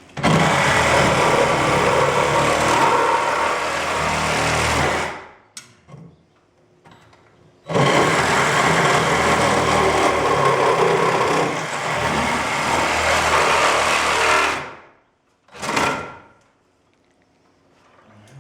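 Handheld power saw cutting in two long runs of about five and seven seconds, each winding down as the trigger is released, then a short burst near the end.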